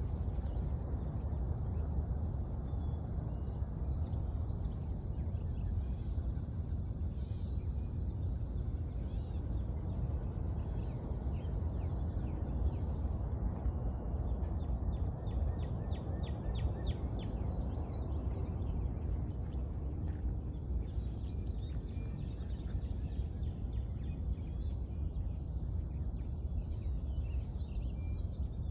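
Steady wind rumble on the microphone, with small birds chirping and trilling in the background.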